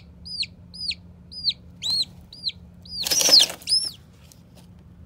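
Chicken chick peeping shrilly about twice a second, each peep rising and falling in pitch. About three seconds in comes a brief noisy flurry of flapping with a louder shriek, and the peeping stops just before the four-second mark.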